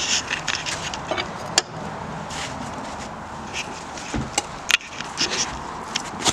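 Metal clicks, clinks and scrapes of a lug wrench being fitted onto and turned against a truck wheel's lug nuts, with a sharp click about a second and a half in, a low thump just after four seconds and another sharp click near five seconds.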